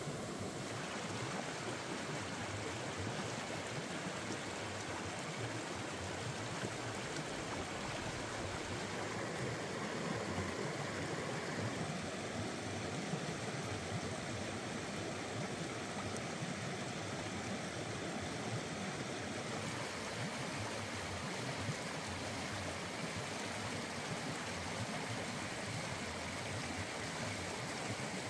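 Fast-flowing stream rushing over rocks: a steady wash of moving water.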